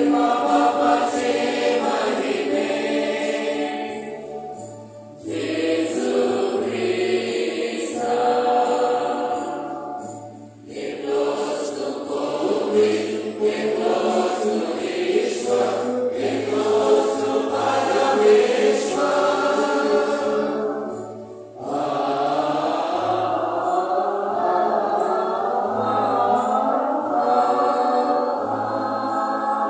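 Choir singing a hymn during Mass, in sung phrases broken by short pauses about 5, 10 and 21 seconds in.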